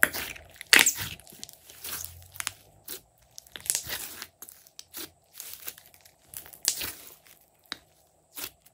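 Glossy slime being kneaded and pressed by hand: an irregular run of wet crackling squishes, the loudest at the very start and about a second in.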